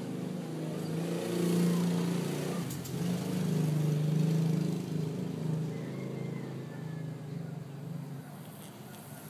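A sleeping cat snoring: a low, rattly buzz that swells and fades with its breathing. It is loudest about a second and a half in and again around four seconds, then tails off near the end.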